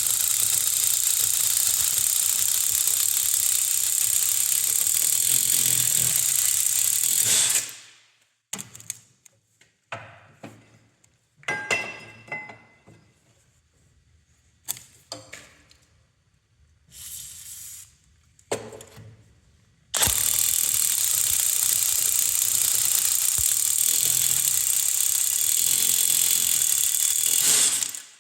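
Cordless impact wrench driving an HMT hole-cutting bit into 10 mm steel plate. It runs in two long stretches of about eight seconds each. Between the runs come short clanks and knocks of handling.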